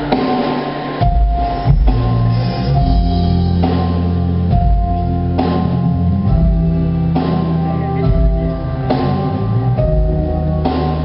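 Live band playing: drum kit keeping a steady beat under bass and guitar, with held notes throughout.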